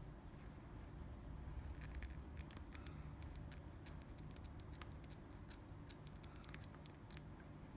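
Faint crackling and crinkling of a thin plastic protective wrap being peeled by hand off a small figure part, a run of small sharp crackles through the middle.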